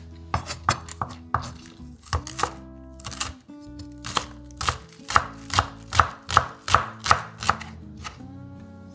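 Chef's knife chopping spring onions on a wooden cutting board: a series of sharp knocks of the blade on the board. They settle into a steady rhythm of about two to three a second in the second half and stop shortly before the end.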